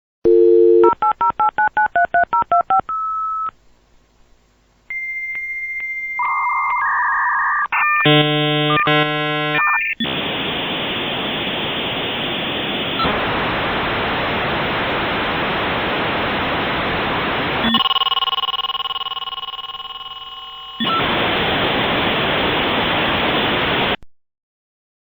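A run of synthetic electronic beep sound effects: a quick series of short pitched beeps like telephone keypad tones, then a few steady single-tone beeps and a chord-like beep. After that come long stretches of static-like hiss, broken in the middle by a steady multi-tone hum that fades away.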